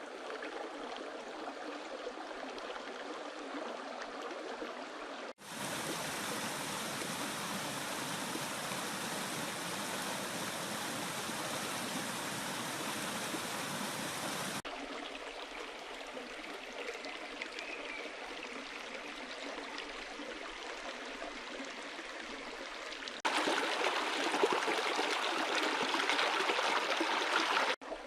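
Stream flowing: a steady rush of water whose character changes abruptly several times, as at cuts between recordings. It is fuller and louder from about five to fourteen seconds in, and louder again near the end.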